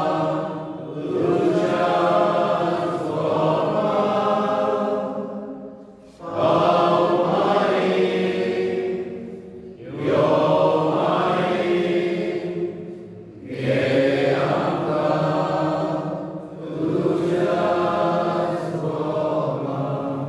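Voices chanting a slow sung prayer in long held phrases, with short pauses for breath every three to four seconds.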